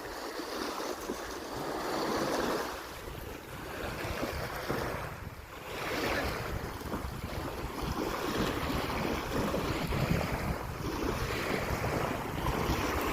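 Sea waves washing onto the shore, swelling and ebbing every few seconds, with wind rumbling on the microphone.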